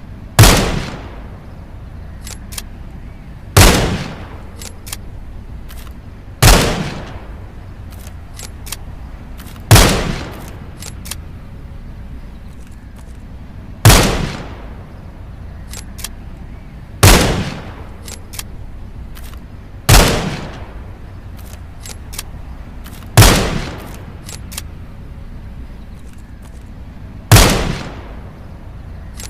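.22 rifle firing single shots, nine in all, one every three to four seconds, each sharp crack trailing off over about half a second. Fainter clicks fall between some of the shots.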